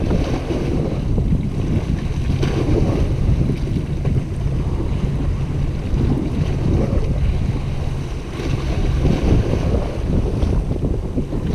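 Wind buffeting the microphone in a steady low rumble, with sea waves washing against the rocks below.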